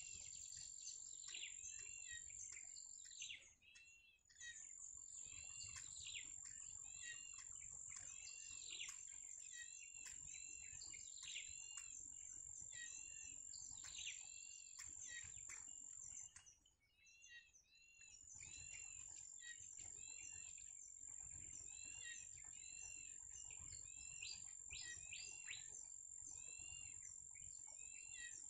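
Birds chirping, with short arched notes repeated several times a second, over a steady high-pitched insect drone that cuts out briefly twice.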